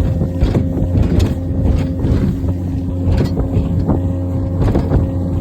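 Outboard motor running steadily at high speed, with repeated irregular thuds as the hull slams over light chop.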